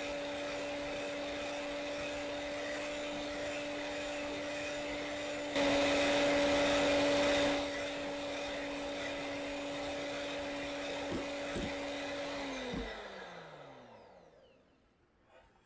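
Electric hand mixer whipping egg and sugar batter for a genoise sponge, its small motor humming steadily. The hum gets louder for about two seconds in the middle. Near the end the motor winds down with a falling pitch as it is switched off.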